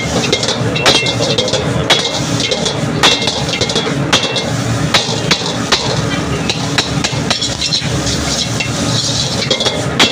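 Metal ladle knocking and scraping against a wok while noodles are stir-fried, with irregular clanks about one or two a second. Under it runs a steady sizzle and the noise of the gas burner.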